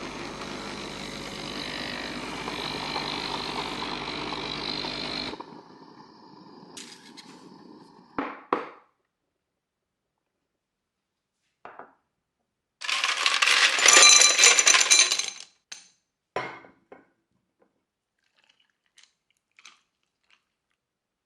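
A steady mechanical running sound that stops abruptly about five seconds in, then scattered clicks and knocks, and a loud burst of clinking like ice knocking against a glass for a couple of seconds.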